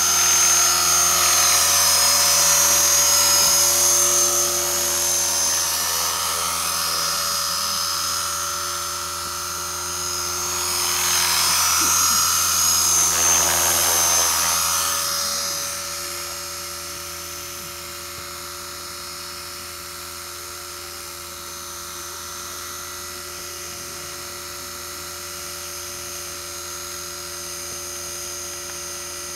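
T-REX HK450 electric RC helicopter hovering, its Turnigy 2836 brushless motor, gears and rotors giving a steady high-pitched whine. It is louder in the first few seconds and again around the middle, then steadier and quieter.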